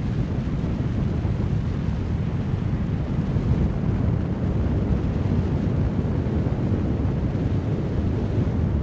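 Steady low rumble of wind on the microphone from the airflow of paragliding flight.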